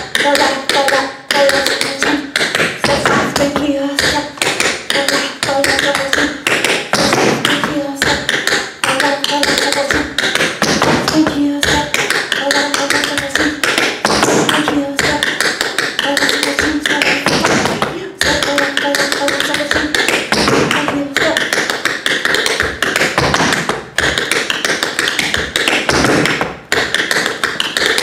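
Tap shoes' metal taps striking a hard floor in a quick, continuous run of clicks and stamps, the rhythm of repeated Buffalo time steps (spank heel, step, fall-lap, shuffle change).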